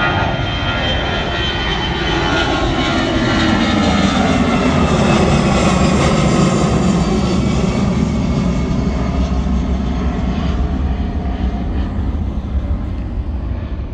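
Jet airliner climbing out after takeoff and passing overhead: a loud jet roar with whining engine tones that slide down in pitch as it goes over. It is loudest around the middle and fades toward the end.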